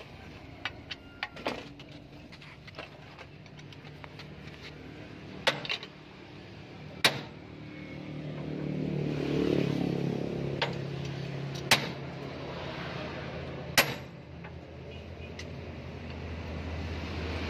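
Scattered sharp clinks and knocks of hand tools on metal as the camshaft cap bolts on a Hino 500 truck's cylinder head are worked with a socket wrench and extension. An engine runs in the background, growing louder about halfway in.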